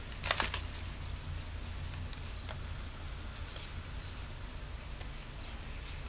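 Baseball card pack wrapper crinkling briefly about a third of a second in, then faint scattered rustles and clicks of trading cards being handled, over a steady low hum.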